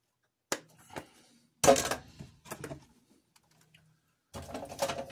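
Small tools and parts being handled on a workbench: clicks and clatter in a few separate bursts, the loudest about two seconds in and a longer run near the end.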